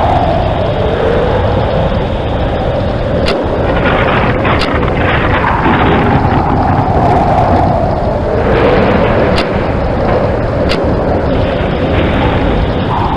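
Heavy rain with a continuous thunder rumble that swells and fades in slow waves. A handful of sharp clicks or cracks sound through it.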